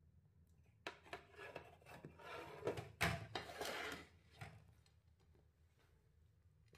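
Kitchen handling sounds: scraping and rubbing, with a sharp knock about a second in and the loudest knock about three seconds in, then it dies away.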